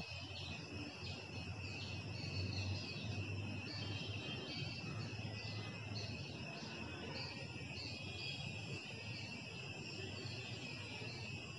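Continuous high-pitched pulsing trill of insects, over a faint low hum.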